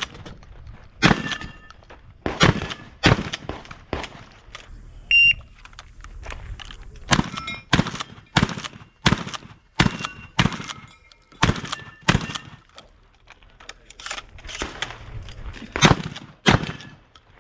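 Shotgun shots fired in quick strings, about twenty in all, with short pauses between the strings.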